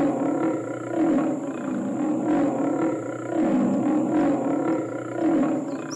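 A tiger roaring, really loud: a rough, continuous roar that swells and eases about once a second.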